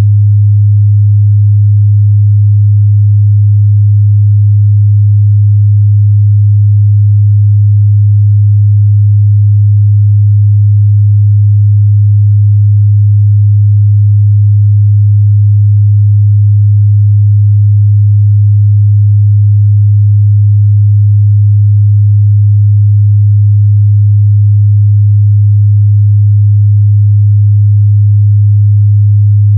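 A loud, steady 103 Hz sine-wave test tone, one unchanging low hum.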